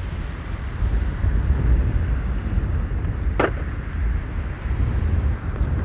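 Low, steady rumble of wind buffeting the microphone, with one short sharp click about three and a half seconds in.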